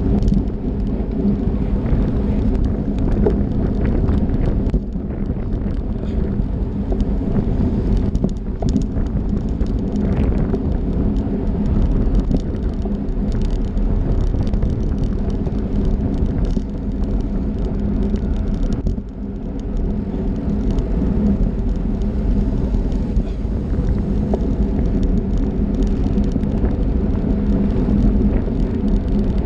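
Wind rumbling on the microphone of a bike-mounted camera, over steady tyre and road noise from a bunch of racing bicycles at speed, with a few brief dips in level.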